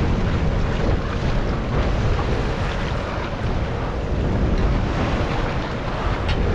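Wind buffeting the microphone over the steady wash of choppy sea around an open fishing boat.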